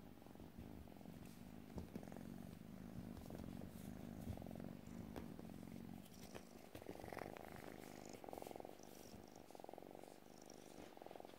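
Kitten purring steadily and softly, with a few faint knocks.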